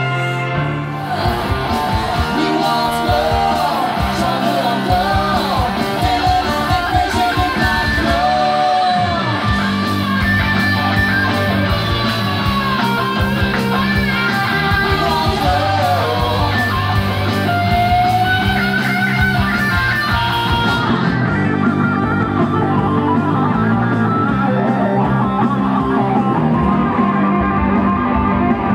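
Rock song with singing, electric guitar, bass and drums. About two-thirds of the way through it changes to a duller, guitar-led passage without the voice.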